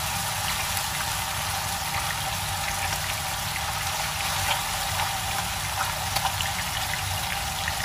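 Fish head pieces frying in hot oil in a pan: a steady sizzle with a few small crackles and pops.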